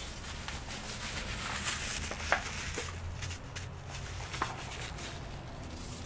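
Workbench handling noise: a steady rustle with two sharp taps, one a little over two seconds in and one about four and a half seconds in.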